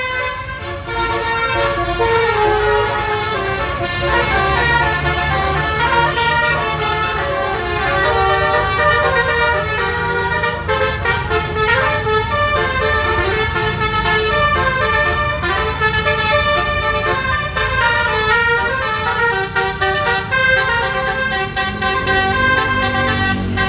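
Twelve-trumpet basuri telolet horn on a bus playing a melody, one note after another in quick changes of pitch, with a low engine hum underneath.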